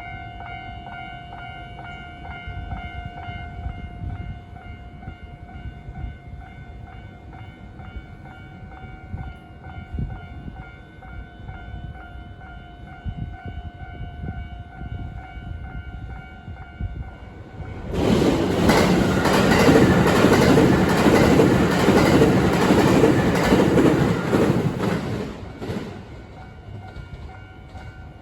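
Japanese level-crossing alarm ringing its repeating electronic bell tone, then a JR Hanwa Line electric train passes over the crossing about 18 seconds in, loud for about seven seconds before fading; the alarm stops near the end.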